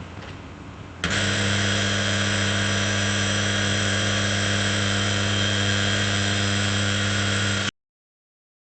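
Electric drill boring a hole: after about a second of quieter noise, the motor comes up to full speed with a steady, high whine, runs evenly for several seconds, then cuts off abruptly.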